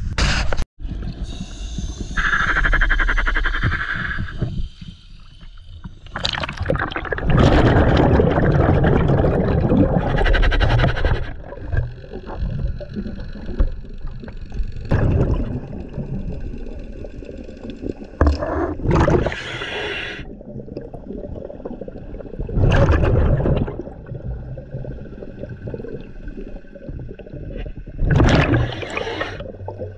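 Scuba diver breathing underwater through a regulator: loud gurgling bursts of exhaled bubbles come every few seconds, with quieter water noise between them.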